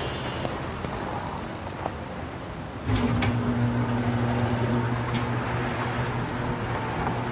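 Roll-up metal garage shutter opening. A few clicks about three seconds in, then a steady low hum as it rises, over quiet street background.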